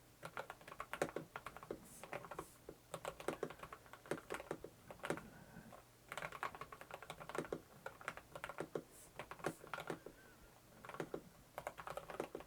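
Light typing on the Varmilo APT109 mechanical keyboard with yellow switches: quick runs of soft key clicks, with short pauses about six seconds in and again around ten seconds.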